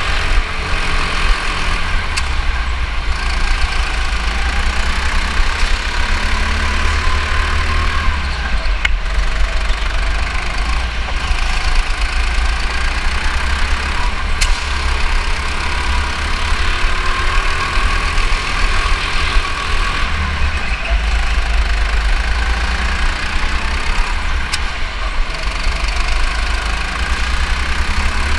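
Go-kart engine running under the driver, its pitch rising and falling over and over as the kart accelerates and slows through the corners, over a deep constant rumble. A few brief clicks or knocks sound now and then.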